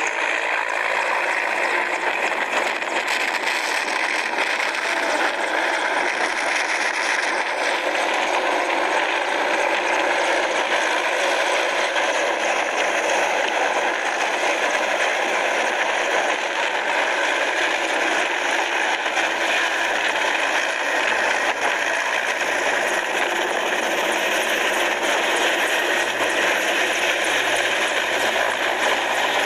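Large military transport helicopter flying low overhead, its rotors and turbine engines making a steady, rough noise without a break.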